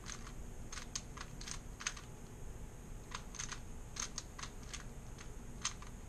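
3x3 Rubik's Cube being turned by hand in a solve: quick, irregular clicks as the layers snap round, in two flurries with a short pause between them.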